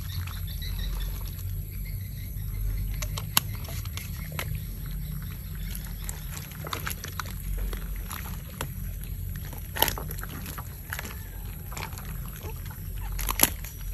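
Live eels being handled by hand in a wicker basket: wet slithering and squelching, with scattered sharp smacks and clicks, over a steady low rumble.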